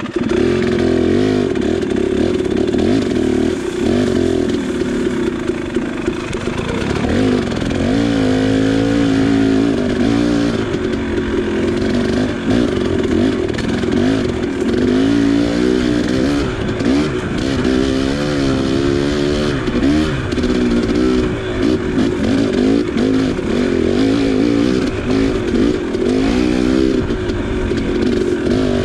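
KTM 300 XC two-stroke single-cylinder dirt bike engine being ridden, its pitch rising and falling again and again as the throttle is opened and closed.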